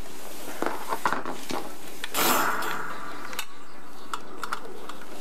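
Small clicks and clinks of hand tools working on a pipe fitting, with a short scraping rush about two seconds in.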